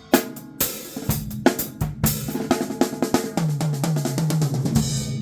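Drum kit being played in a solo: snare and bass drum strikes with cymbals, then about three seconds in a quick fill of hits stepping down in pitch across the toms, ending on a cymbal crash that rings on.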